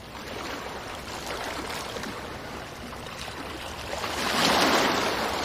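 Ocean waves washing in with small splashes, one wave surging louder about four seconds in and then ebbing.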